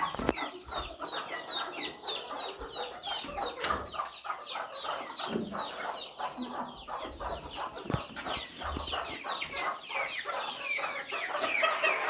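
Chickens in a coop calling continuously: a dense run of quick, high, falling peeps mixed with clucking, with a few faint knocks.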